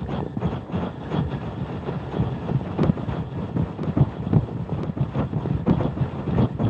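Bird wings flapping close to the microphone: a loud, dense, irregular flutter of many soft overlapping thumps.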